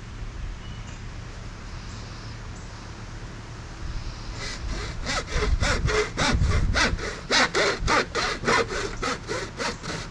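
Hand saw cutting, with quick back-and-forth strokes at about three to four a second, starting about four seconds in.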